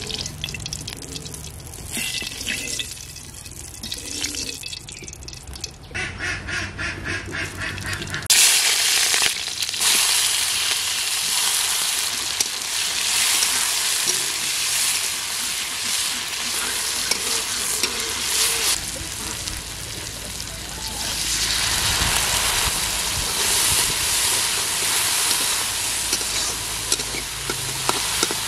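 Vegetables frying in hot oil in an iron karai over a wood fire, stirred with a metal spatula. After a quieter start and a short run of quick, even taps, a loud sizzle starts suddenly about a third of the way in and keeps going with small swells.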